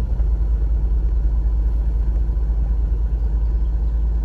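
Steady low rumble of a car heard from inside the cabin as it drives slowly along a dirt track.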